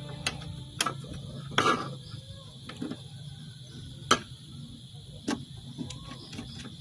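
Scattered sharp clicks and taps from stiff wires and the plastic parts of a circuit breaker and contactor being handled during wiring in a control panel, about six distinct clicks with the loudest just after four seconds, over a steady low hum.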